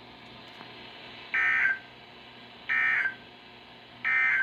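NOAA Weather Radio SAME end-of-message data burst: three short, identical bursts of digital warbling tones about a second and a half apart, marking the end of the warning message, over faint radio hiss.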